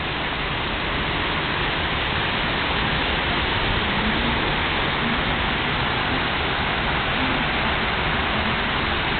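Hailstorm: hail and rain pelting down steadily, a dense even hiss.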